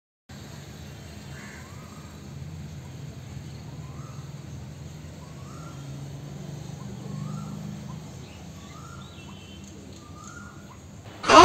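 A bird calls in short chirps, roughly once a second, over a steady low background hum. A sudden loud sound cuts in at the very end.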